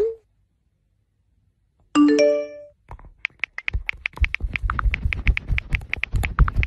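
A short multi-note message-notification chime about two seconds in, then a fast run of keyboard-typing clicks, about eight a second, over low thumps.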